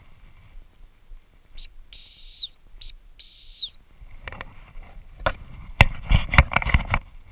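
Gundog training whistle blown twice in a short-long pattern: a short pip then a long blast, each long blast dropping in pitch as it ends. After it comes a run of irregular thumps and rustles close to the microphone.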